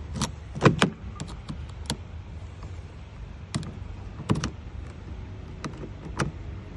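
Scattered sharp metallic clicks and taps of a freshly cut key being tried in a Chevy Silverado's door lock, over a low steady hum.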